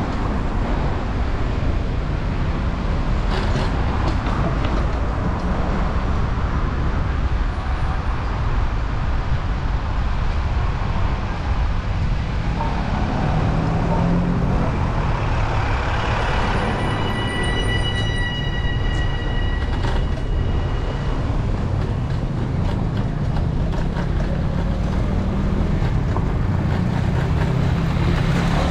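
Street sound picked up by a bicycle-mounted action camera on the move: a steady low rumble of wind and rolling tyres, with city traffic and a bus going past. A little past halfway, a high steady squeal with overtones lasts a few seconds.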